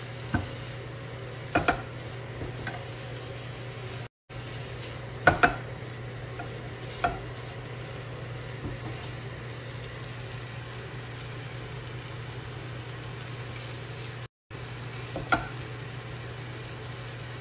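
A silicone spatula stirring and turning shredded chicken and onion filling in a nonstick frying pan, over a steady low sizzle and hum, with a few sharp knocks of the spatula against the pan.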